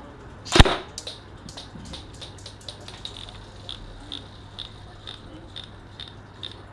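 A single sharp shot from a Specna Arms M4 Core airsoft electric rifle about half a second in, followed by light, evenly spaced clicks about twice a second.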